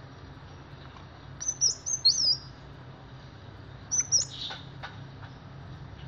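Kolibri wulung sunbird singing: two short bursts of high, sharp chirping notes that swoop quickly up and down, about a second and a half in and again about four seconds in. A faint steady low hum runs underneath.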